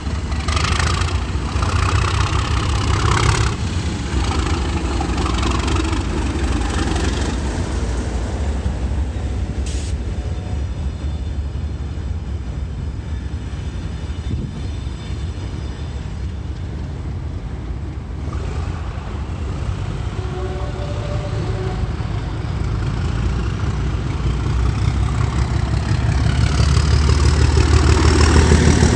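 Two Class 37 diesel locomotives, 37421 and 37099, their English Electric V12 engines thrashed under power as the test train pulls away. It is a heavy, steady low engine drone, with a high whistle rising near the end as the sound builds to its loudest while 37099 passes close.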